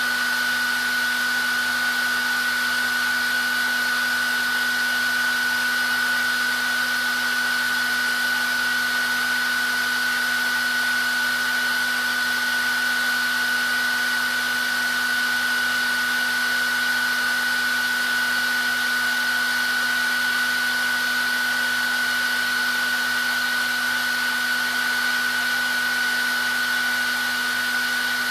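Hair dryer running steadily: an even rush of blown air with a high steady whine from the motor and fan and a lower hum beneath it.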